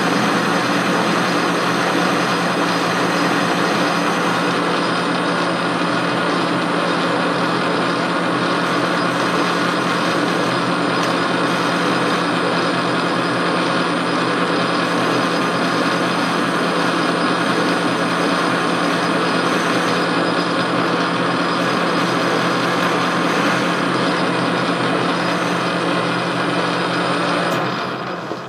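Metal lathe turning a shaft blank for an Acme lead screw while a cutting tool takes a pass along it: a steady motor and gear hum with a high whine and the hiss of the cut. The lathe is switched off near the end and winds down.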